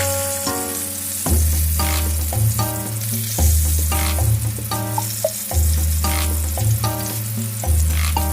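Starch-coated tofu deep-frying in hot oil, a steady sizzle, under background music with a bass line and chords changing about every second.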